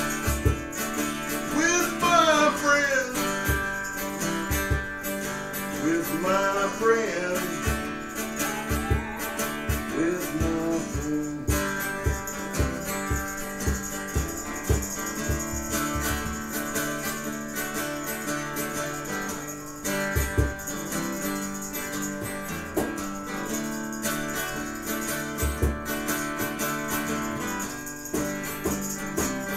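Live band music led by guitar, with sliding, bending melody lines in roughly the first ten seconds over steady sustained chords and a beat.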